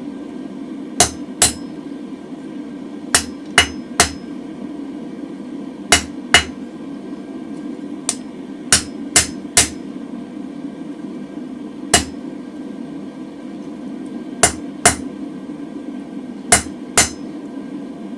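Hand hammer striking a hot mild-steel bar on the anvil, about sixteen blows in short groups of two or three with pauses between, each with a brief metallic ring: the bar is being straightened while the swollen centre is left unhit. A steady low hum runs underneath.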